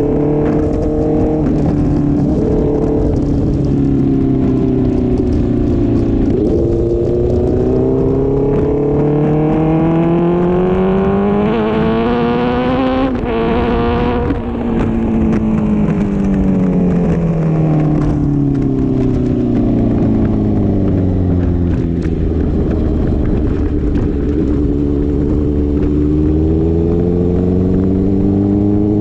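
Honda CB650F inline-four engine running through a Mivv MK3 full exhaust without a catalytic converter. The engine note climbs steadily for several seconds, peaks about halfway through, then falls back to a lower, steady note.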